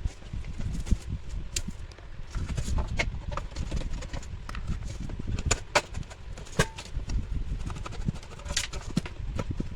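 Irregular clicks and light knocks of small parts and tools being handled during a repair on an electric cooking pot, over a low rumble.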